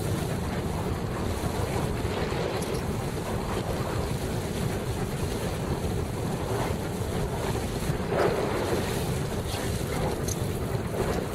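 Wind buffeting the microphone over water rushing and splashing around a sailing dinghy, with a louder splash about eight seconds in.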